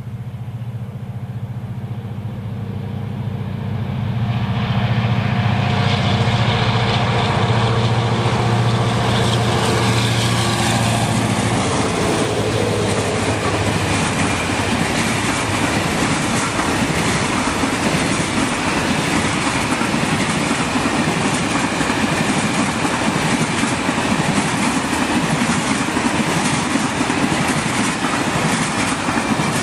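Container freight train passing close by. A steady low hum from the locomotive fades over the first dozen seconds as it goes by. A long string of container flat wagons then rolls past, its wheels clattering on the rails under a steady rushing noise.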